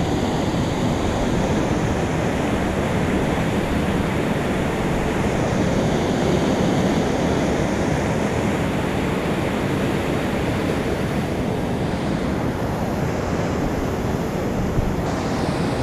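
Steady, unbroken rush of water pouring out through the gates of a river dam.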